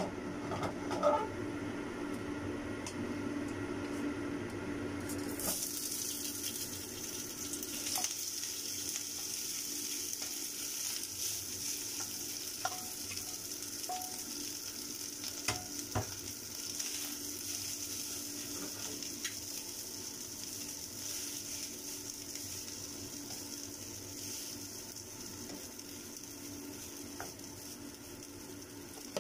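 Hot oil sizzling in a nonstick wok, the hiss starting suddenly about five seconds in and running steadily while cooked rice is tipped in and stirred with a wooden spatula. A few sharp knocks of utensils against the pan, over a steady low hum.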